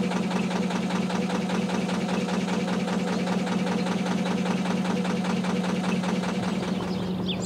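Narrowboat's air-cooled Lister diesel engine running steadily at low cruising revs, with an even, regular chugging beat.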